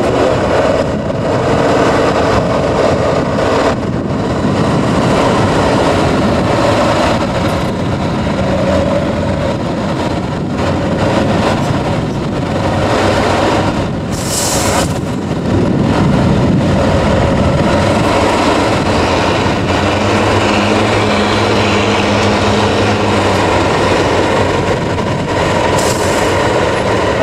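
Tatra 813 trial truck's air-cooled V12 diesel running steadily as the truck crawls over rough sandy ground, with a short hiss about halfway through.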